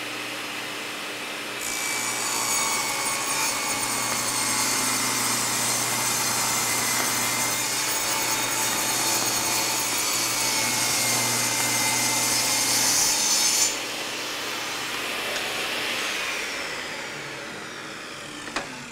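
Portable table saw running while its blade rips a long 3/4-inch-wide runner strip against the fence, with a steady hissing cut from about two seconds in to about fourteen seconds in. After the cut the motor is switched off and winds down, falling in pitch near the end.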